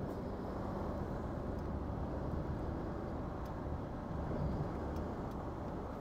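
Hino Profia heavy truck driving: steady low engine and road drone.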